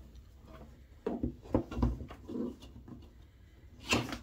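Handling noise as a plastic panel-mount power connector and its wires are worked into a hole in a plywood panel: a few dull knocks in the first half, then a sharper click near the end.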